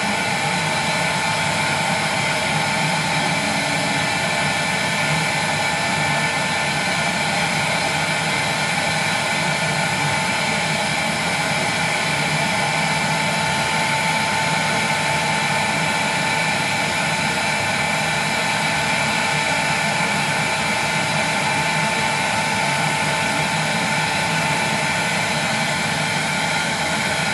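Heat gun running steadily: a constant rush of hot air with a steady fan whine. It is blowing onto the face of a colour CRT to soften the bond under its safety lens and move the air pockets beneath it around.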